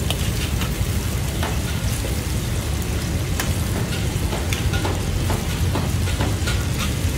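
Duck tongues deep-frying in hot oil in a wok: a steady sizzle full of small pops and crackles. A steady low rumble runs underneath.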